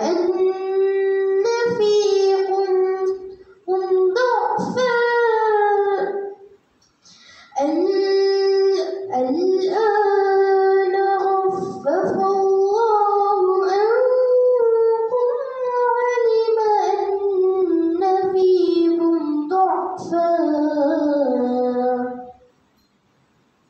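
A girl's solo voice reciting the Quran in tarannum, the melodic chanted style, drawing out long ornamented notes that bend and waver in pitch. She pauses briefly for breath about six and a half seconds in, and the phrase ends just before the close.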